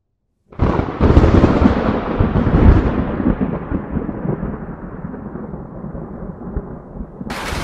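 A thunderclap breaks in suddenly about half a second in and rumbles on, loudest for the first two seconds or so, then slowly dying away as a lower rolling rumble. Near the end, a steady hiss of heavy rain starts abruptly.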